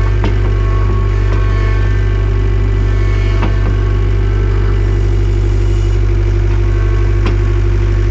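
An engine running steadily at idle, a constant low hum with three sharp knocks spread through it.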